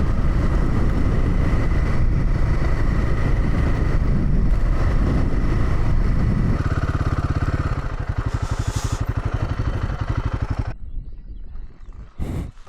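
Royal Enfield Himalayan 450's single-cylinder engine running under way on a gravel road, with road noise. About two thirds of the way in it drops to a slower, evenly pulsing beat as the bike slows. A little before the end the engine sound cuts off suddenly.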